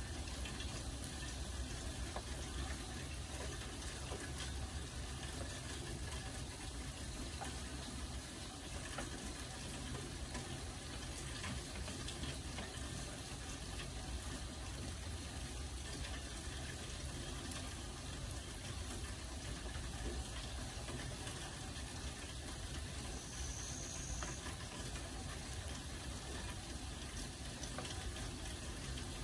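Steady rain falling, a dense even hiss of drops with many small ticks of single drops.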